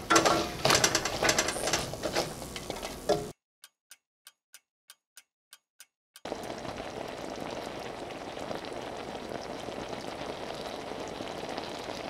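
A silicone whisk scrapes and clicks through raw cranberries in a stainless saucepan. Then a clock ticks about three times a second over dead silence for about three seconds. After that comes the steady bubbling of cranberry sauce simmering in the pan.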